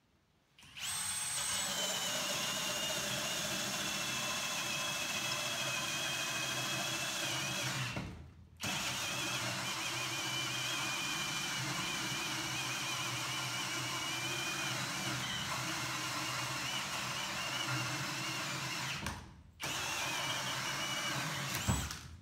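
Ridgid Octane cordless drill boring a 4-inch hole saw through a wooden board, its motor whining steadily under heavy load. It stalls twice, about 8 and 19 seconds in, and starts up again after each stall.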